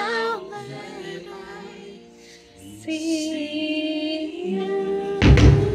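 Music with a woman singing a sustained melody. About five seconds in, a sudden loud, deep thump cuts across it and is the loudest moment.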